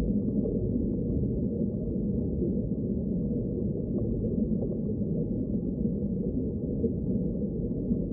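Steady, muffled underwater rumble: a low, even wash of water noise with no distinct events.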